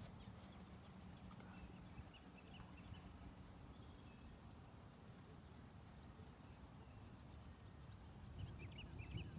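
Faint, muffled hoofbeats of a ridden horse moving across a soft sand arena, with a few faint bird chirps near the start and again near the end.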